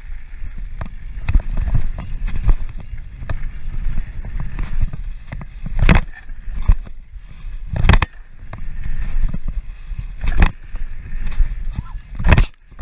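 Mountain bike rolling fast down a dirt trail: a steady rumble of tyres over the ground and wind rushing over the microphone, with several sharp knocks as the bike hits bumps. A whoop from the rider near the end.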